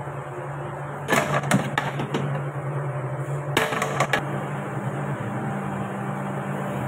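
Kitchen background noise: a steady low hum with a few sharp clatters about a second in and again near four seconds.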